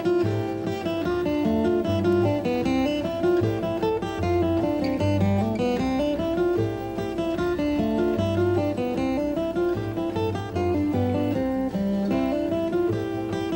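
Acoustic guitar music: plucked notes of a melody over a moving bass line.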